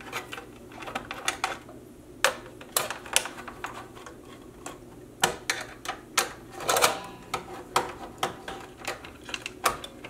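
Screwdriver loosening the CPU heat sink's screws in a desktop PC: irregular sharp metallic clicks.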